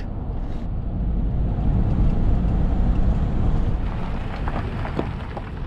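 Steady low road rumble and engine noise inside the cab of a moving motorhome, swelling a little midway and easing off near the end.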